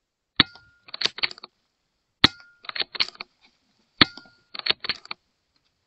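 Three shots from a .22 PCP air rifle, each a sharp crack with a brief ring after it, fired a little under two seconds apart. Each shot is followed about half a second later by a quick run of clicks from the action being re-cocked.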